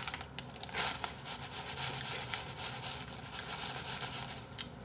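Crinkling and rustling of a plastic packet of seaweed flakes as it is torn open and shaken out over a bowl, with many small crackly ticks.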